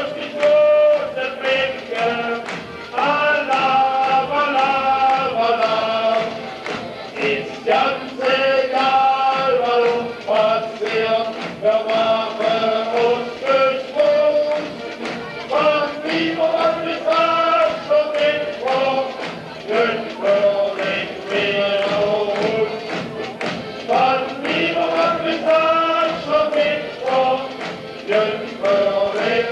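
Music: several voices singing a melody together over a steady tapping beat.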